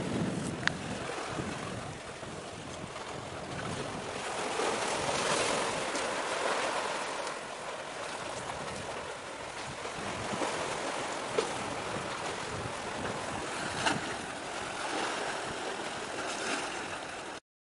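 Waves washing and wind buffeting the microphone, the noise swelling and easing, with a few sharp clicks. The sound cuts off abruptly near the end.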